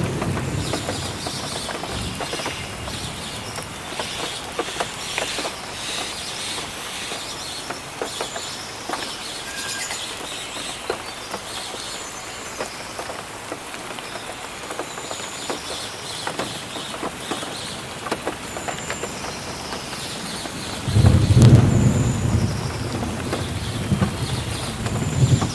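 Steady rainfall with many single drops striking close by. About twenty seconds in, a low roll of thunder rumbles for several seconds.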